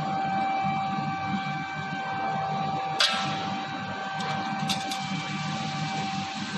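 A 3000 W fiber laser machine running with a steady whine over a low hum, with a sharp click about three seconds in and a few lighter ticks a couple of seconds later.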